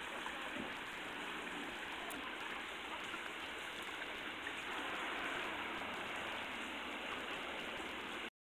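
Shallow creek water running steadily over rocks, a continuous even rush. It cuts off abruptly near the end.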